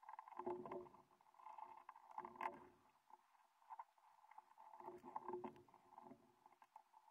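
Faint handling noise of small RC truck suspension and steering parts being fitted together: light clicks and three short bouts of rubbing and scraping, about half a second in, around two and a half seconds, and around five to six seconds.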